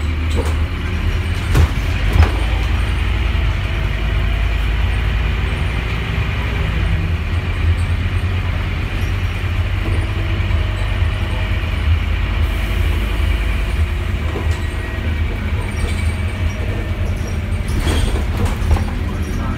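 Scania N230UD Omnidecker double-decker bus heard from inside the saloon while under way: a steady low engine and road rumble, with rattles from the fittings and a few sharp knocks as it goes over bumps.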